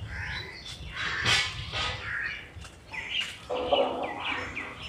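Several birds chirping and calling, short curved calls repeated in quick runs, busiest in the second half.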